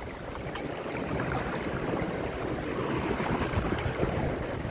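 Water rushing and splashing along the hull of a sailboat heeled over in choppy seas, slowly growing louder.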